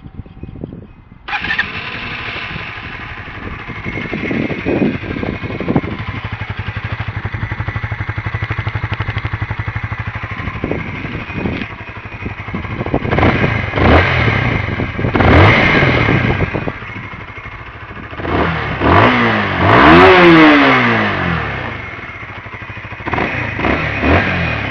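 Honda CBR125R's single-cylinder four-stroke engine starting about a second in and idling, then revved several times. The biggest rev comes near the end, rising and then falling back. The engine is already warm.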